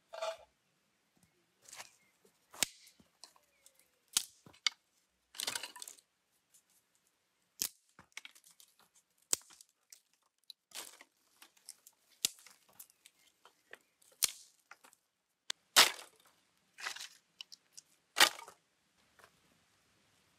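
Dry sticks snapping as they are broken by hand: a series of sharp cracks at irregular intervals, with short rustles of wood being handled between them. It opens with a soft knock of tomatoes going into a cast iron pot.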